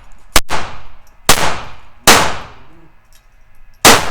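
Gun fired four times at an uneven pace, each shot a sharp bang followed by a ringing tail from the indoor range; about a second passes between the first three shots and nearly two before the fourth.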